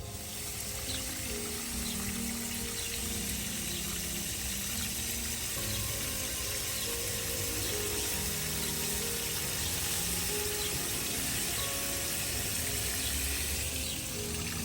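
Water running steadily, as from a tap, switched on at the start, with soft background music playing over it.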